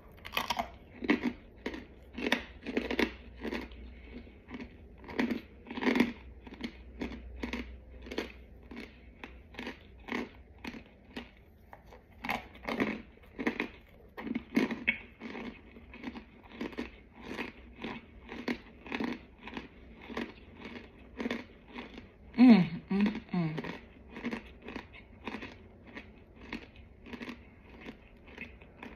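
Close-up chewing and crunching on chunks of a chalky white powder, about two crunchy chews a second, with a short hum-like vocal sound late on.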